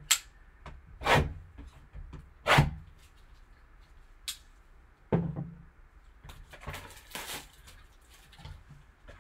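Cellophane shrink wrap being slit with a folding knife and stripped off a sealed trading-card box: several sharp plastic snaps and crackles, then crinkling and rustling as the wrap comes away and the box is handled.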